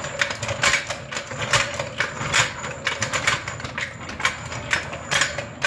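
Steel 3-ton floor jack being rolled back and forth across a sealed concrete floor: its wheels rumble and the frame rattles with a quick, irregular run of clicks and knocks.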